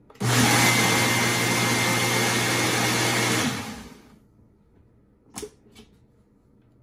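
Ninja Professional blender running for about three seconds, blending ice with coffee, creamer and milk, then spinning down and stopping. A little later come two short clicks as the single-serve cup is taken hold of on the base.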